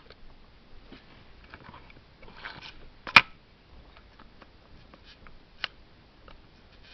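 FED rangefinder camera's cloth focal-plane shutter fired at the 1/8 s setting during a post-repair speed check. A brief rasp comes a little over two seconds in, then a sharp shutter click about three seconds in, and a fainter click between five and six seconds in.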